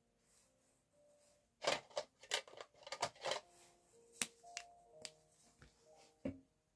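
Marker pens being picked out of a plastic pen tray and handled: a quick run of sharp clicks and rattles about two to three and a half seconds in, then single clicks about four, five and six seconds in. Quiet background music with held notes plays underneath.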